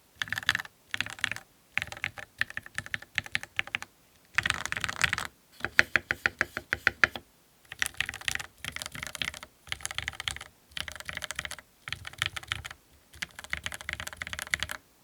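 Typing on a mechanical keyboard with Gateron Milky Yellow Pro linear switches and GMK doubleshot ABS keycaps, in quick bursts of keystrokes with short pauses between them. The typing stops just before the end.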